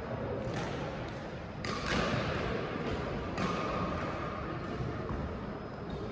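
Badminton racket strikes on a shuttlecock during a rally: several sharp hits a second or two apart, over the steady background noise of a sports hall.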